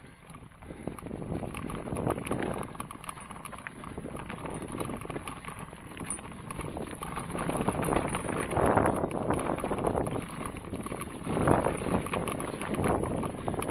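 Rattling, bumping and rustling of fast travel over a bumpy dirt trail strewn with dry leaves, mixed with wind on the microphone. It gets louder twice in the second half.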